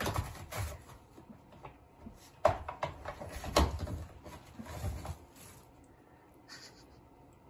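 A cat batting and tugging at a toilet paper roll on its wall-mounted holder: paper rustling, with knocks and rattles from the holder and its cover. The loudest knocks come about two and a half and three and a half seconds in.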